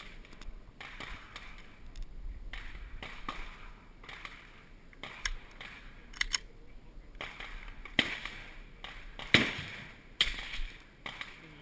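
Scattered sharp clicks and knocks over a low hiss, the loudest a single sharp crack about nine seconds in.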